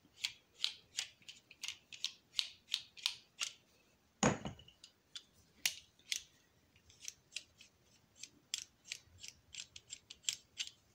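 Metal threads of a homemade .22 LR pen gun being unscrewed by hand to open it after firing: a run of short light clicks, about three a second, then a single fuller knock about four seconds in, followed by more scattered clicks.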